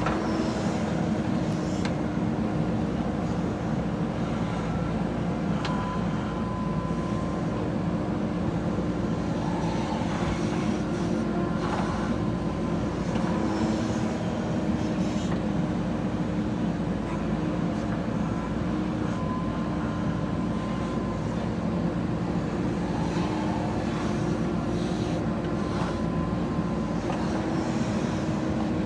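JCB 3DX backhoe loader's diesel engine running steadily under work, with a few faint knocks.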